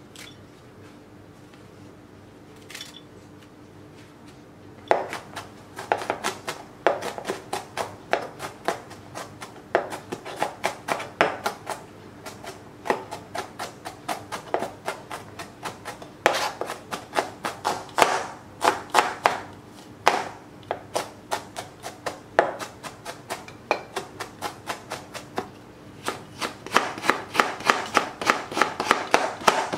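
Chef's knife chopping on a plastic cutting board, dicing onion and then cutting carrot into thin strips, in quick runs of strokes several a second with short pauses. The chopping starts about five seconds in, after a faint snip of kitchen scissors.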